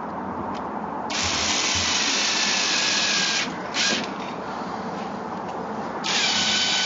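Power drill-driver running in bursts as it drives small screws through a fiberglass reinforcing band into a horse's hoof wall: one run of a couple of seconds, a brief blip, then another short run near the end.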